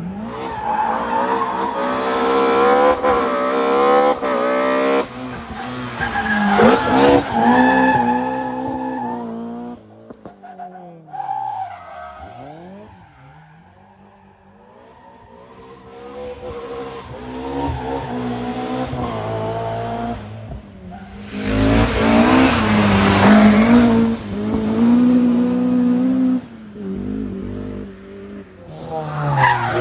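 Historic rally cars at full throttle on a stage, engines revving up and dropping back through gear changes. About ten seconds in, one car passes and fades away with falling pitch. Another then comes in loud, with tyre squeal from about 22 to 26 seconds.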